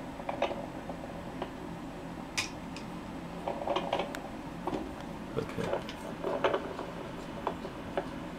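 Handheld fetal Doppler's speaker giving a steady hiss broken by irregular scratchy crackles as its probe is moved over a gravid boa constrictor's scales, searching for the babies' heartbeats.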